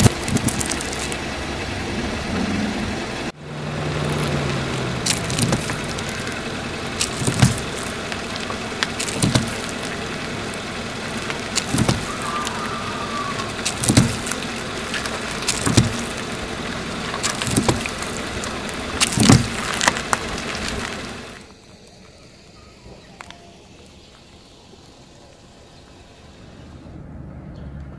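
A car tyre rolling slowly over juice pouches on asphalt, over steady engine and tyre noise, with a series of sharp pops about every two seconds as each pouch bursts and sprays. The noise stops about three-quarters of the way through.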